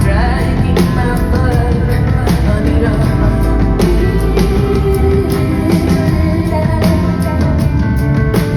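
Live rock music: a woman singing over a full band with drums keeping a steady beat, loud and continuous.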